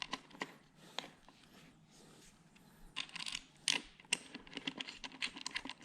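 Light metallic clicks and taps of small handguard hardware, the bolts and clamp, being handled and fitted, with a quiet pause in the middle and a quick run of clicks after it.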